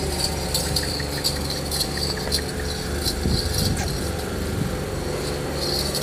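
A steady low mechanical hum, with scattered light clinks and jingles over it.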